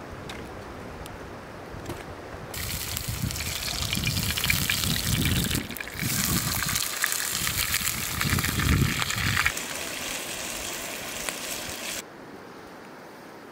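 Whole trout frying in a pan over campfire coals: a dense, crackling sizzle that starts about two and a half seconds in, breaks briefly, and stops abruptly near the end.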